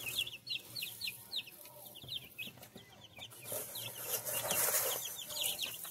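Two-week-old chicks peeping steadily, a quick run of short, falling high peeps. Under them, dry pine shavings rustle as they are scooped by hand from a cardboard box and scattered, loudest a little past the middle.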